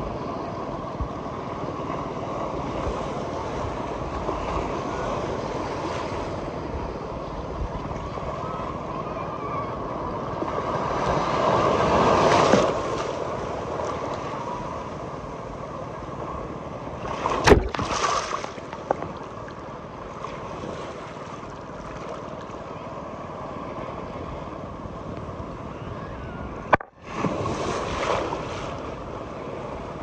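Sea waves washing on the shore with wind noise on the microphone. The surge swells about twelve seconds in and again briefly later on, with a sharp click partway through and a momentary drop-out near the end.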